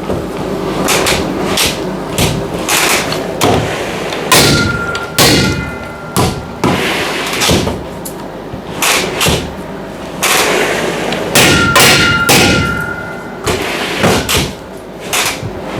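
Irregular knocks and thuds on metal, some of them leaving a ringing tone: about four seconds in, and again for about two seconds near twelve seconds.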